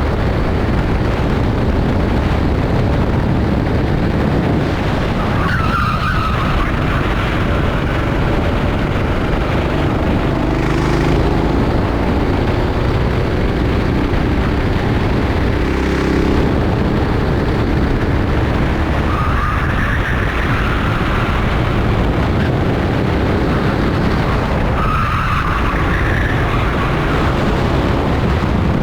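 Rental kart racing: kart engines running under load, with a loud steady rush throughout. Tyres squeal briefly through corners three times: about 6 seconds in, around 20 seconds, and again around 25 seconds.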